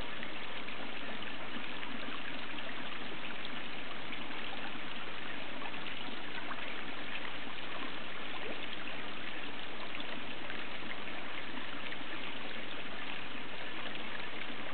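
Water trickling steadily into a garden koi pond, a constant running-water hiss without pauses.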